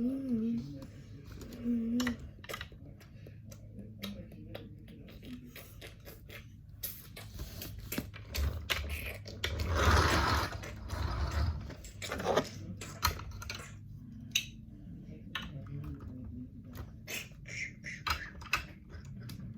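LEGO bricks being handled and sorted, with many small irregular plastic clicks and clatters and a denser stretch of rummaging about ten seconds in.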